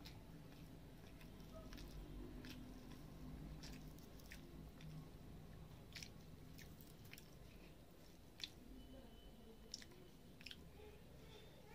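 Faint eating sounds: fingers squishing rice and fried fish into gravy on a steel plate, with soft chewing and a small wet click every second or two.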